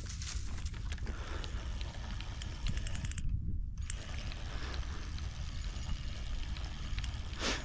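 Spinning fishing reel being wound in, its gears ticking, over a steady low rumble, with a short rush of noise near the end.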